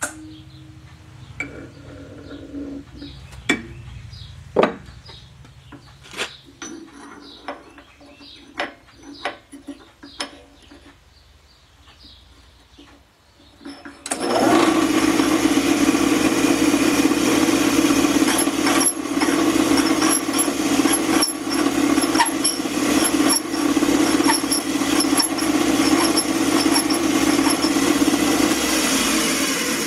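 Scattered metal clicks and knocks as a worn connecting rod cap is set in the fixture of a rod cap grinder; then, about 14 s in, the grinder's motor and abrasive wheel start and run steadily, loud, taking a light cut off the cap's parting face, the first step in resizing a worn rod's big end. The noise begins to die away at the very end.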